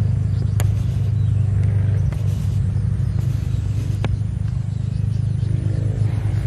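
A steady low rumble with a faint pitched hum over it, broken by two sharp clicks, one about half a second in and one about four seconds in.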